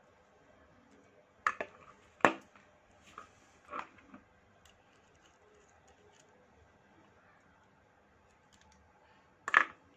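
A few sharp metal clicks and taps as a small chrome quick-connector air fitting is handled and fitted to an airbrush. The loudest come about two seconds in and near the end.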